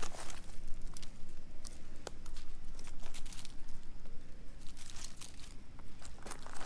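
Dry fallen leaves crackling and rustling in short, irregular bursts as cats step and shift on the leaf litter, over a steady low rumble.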